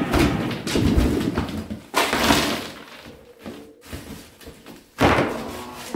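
Crashing, breaking impacts of gingerbread houses being smashed underfoot: a run of knocks, with loud crashes about two seconds in and near the end, each trailing off.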